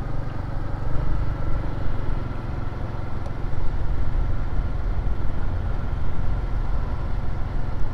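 Motor scooter riding along at steady speed: a continuous engine drone with road and wind noise.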